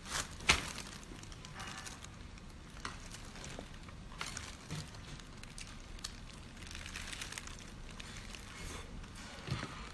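Close-up eating sounds of someone chewing scallop with glass noodles: wet mouth smacks and small scattered clicks, with one sharp click about half a second in.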